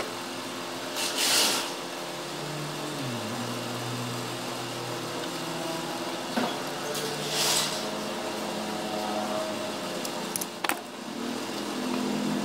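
Steady mechanical hum with a few pitched tones, one dipping in pitch about three seconds in. It is broken twice by short hissing rushes, with a couple of sharp clicks near the end.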